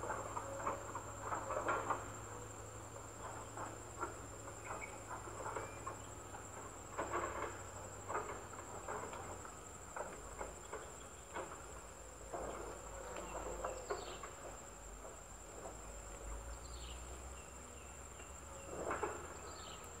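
Insects droning on one steady high pitch, with irregular soft crackles and taps among the foliage. A few short falling chirps come in the second half, the last near the end.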